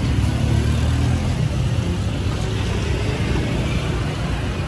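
Street traffic: a motor vehicle's engine hum, strongest in the first second and a half and then easing, over steady road noise.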